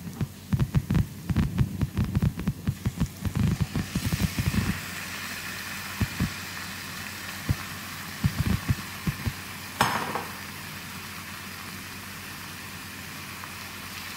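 Chicken pieces going into a pan of frying onion and masala, with a quick run of dull thumps. About four seconds in, a steady sizzle takes over as the meat fries, broken by a few knocks from the spoon against the pan.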